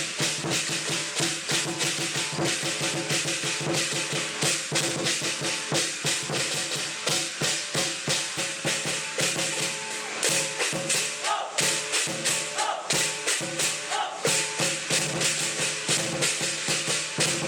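Lion dance percussion: a fast, driving beat of drum strikes with clashing cymbals, the ringing of the metal sustained beneath the hits.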